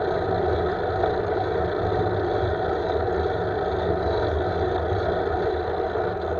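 Steady wind rush and low road rumble on a handlebar-mounted camera's microphone as a road bike rides along at speed.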